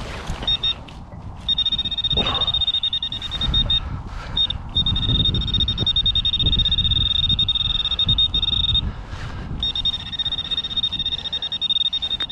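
Metal detector giving a steady high-pitched tone over a dug target, cutting out briefly a few times as it is moved, with rumbling handling noise underneath.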